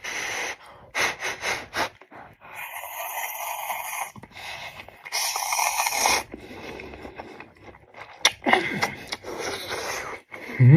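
A person slurping instant noodles, two long slurps with short clicks and chewing sounds in between.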